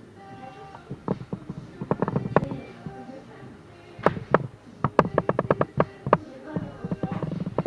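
Background music with held tones and sharp percussive clicks, including a quick even run of clicks just after the middle.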